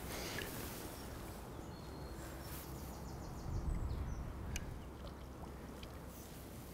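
Outdoor lakeside ambience: a steady low rumble of wind on the microphone with gently moving water around a wading angler, swelling briefly about halfway through, and a few faint high ticks.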